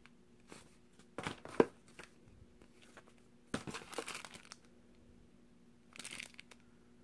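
Paper leaflets and a clear plastic bag rustling and crinkling as they are handled in a cardboard box, in three short bursts about one, four and six seconds in, the first with a sharp crackle. A faint steady hum lies underneath.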